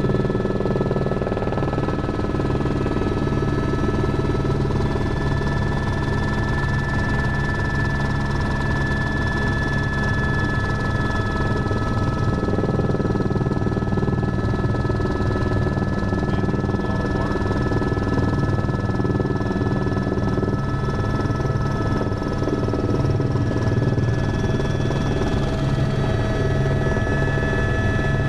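Helicopter cabin noise: a steady turbine whine over the fast, even beat of the rotor blades.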